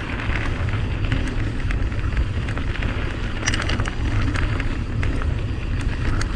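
Mountain bike riding a dirt trail: steady low wind rumble on the GoPro's microphone and tyre noise, with scattered sharp clicks and rattles from the bike over bumps.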